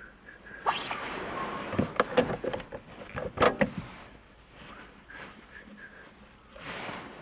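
A run of sharp clicks and knocks with rustling, mostly in the first half, from handling parts inside a car.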